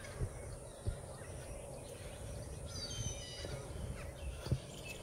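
Outdoor ambience: a steady low rumble with a few soft knocks, and a short bird call lasting about half a second about three seconds in.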